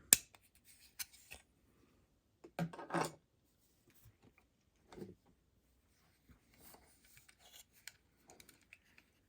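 Plastic shaver housing parts being handled: a sharp click right at the start, another about a second in, a short clattering rattle around three seconds, and a single knock about five seconds in, with faint scraping after.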